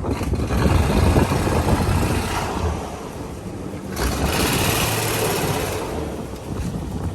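Toyota Land Cruiser FJ45 engine running, with a rushing noise that swells twice, in the first seconds and again about four seconds in.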